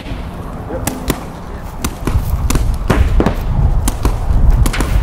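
Paintball markers firing: irregular sharp pops, some in quick runs, coming more often from about two seconds in, over a low rumble.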